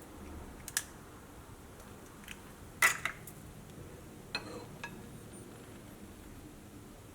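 A few sharp clicks and knocks of bowls and utensils being handled, the loudest about three seconds in.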